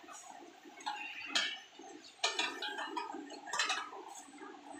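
Light clicks and knocks of metal table-frame parts and small hardware being handled, a few separate sharp taps about a second apart.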